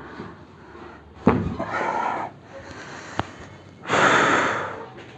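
A patient breathing out hard on a chiropractor's cue during a spinal adjustment. A sharp crack about a second in starts the first exhale, and a faint click follows. A second, louder exhale of about a second comes near the end and fades away.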